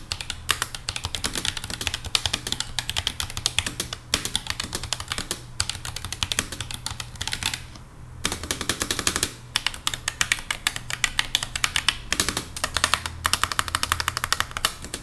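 Fast typing on an ASUS ROG Claymore II mechanical keyboard with ROG RX Red linear switches: a dense, continuous run of key clacks with a brief pause about eight seconds in.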